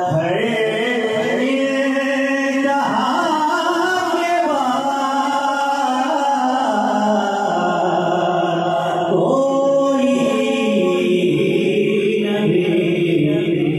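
A man singing a naat, an Urdu devotional poem in praise of the Prophet, a cappella into a microphone, with long held notes that bend in pitch. A new phrase begins about nine seconds in.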